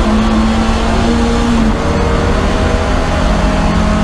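Lancia Delta HF Integrale's turbocharged four-cylinder engine pulling hard under full load inside the race car's cabin, over loud, steady low road and drivetrain rumble as the car accelerates down a straight.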